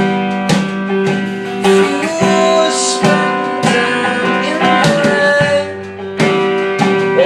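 Acoustic guitar strummed in a song, chords ringing between sung lines.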